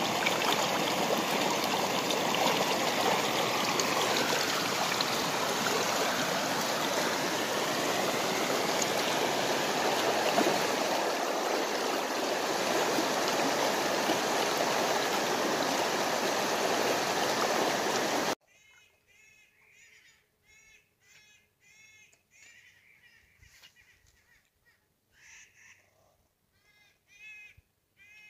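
Small mountain creek rushing and splashing over rocks, loud and steady, which cuts off suddenly about eighteen seconds in. After it, a quiet stretch in which a bird calls in short notes repeated in quick groups.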